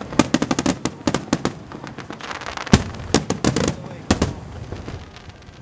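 Aerial fireworks shells bursting overhead: quick runs of sharp bangs and crackling, with a heavy bang about halfway through and another about a second and a half later, thinning out near the end.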